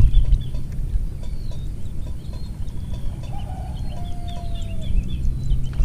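Small birds chirping over and over, and a rooster crowing once, a drawn-out call starting a little over three seconds in, all over a steady low rumble.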